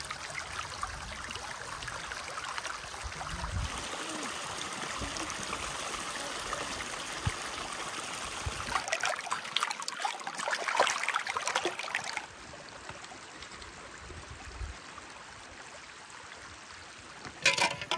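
A shallow mountain stream running over rocks, with a few seconds of louder, choppier splashing around the middle as hands rinse fish in the water. A short, sharp sound comes near the end.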